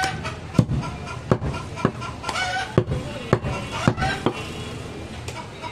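A large butcher's knife chopping through a goat rib rack on a wooden log chopping block: about eight sharp chops at an uneven pace, with voices in the background.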